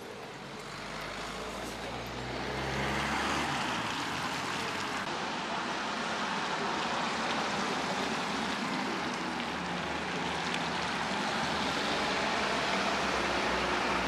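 Street traffic noise: a steady hiss of passing vehicles, growing louder about two seconds in, with a low engine rumble in the first few seconds.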